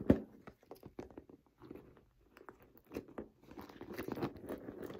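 Small metal clasp and chain clicking as a leather earphone case is clipped onto a handbag's handle. There is a sharp click right at the start, scattered light clicks, and denser rubbing and rustling of the bag and case being handled near the end.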